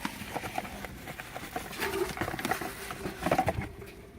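A cardboard box being opened and its packaging handled: scattered rustles, taps and scrapes, busiest about two seconds in and again near three and a half seconds, then quieter.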